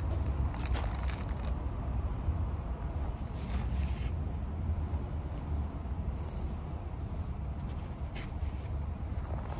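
Brief rustles and scrapes of plastic food packaging being handled, a few times, over a steady low rumble.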